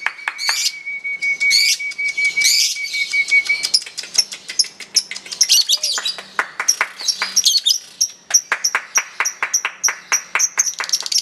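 Lovebird singing a long 'ngekek' chatter: a fast, unbroken run of sharp high chirps and squeaky notes that quickens into a rapid trill near the end. A thin steady whistle sounds under it for the first few seconds.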